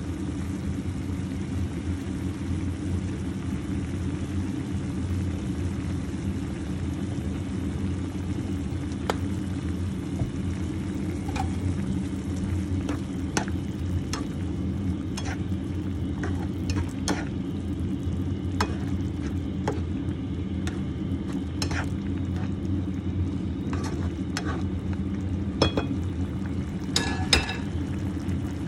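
Beef stew bubbling at a boil in a pan over a steady low rumble, with a spatula clicking and scraping against the pan as the meat is stirred. The clicks start about a third of the way in, come more often in the second half and are loudest near the end.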